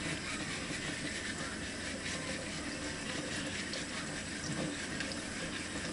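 Tap water running steadily into a sink while sweet potatoes are scrubbed under it, with faint irregular scrubbing strokes.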